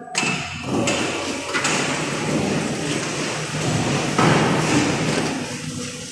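Hand pallet truck loaded with stacked brick pallets rolling over a concrete floor: a rumbling rattle of its wheels and the pallets, getting louder about four seconds in.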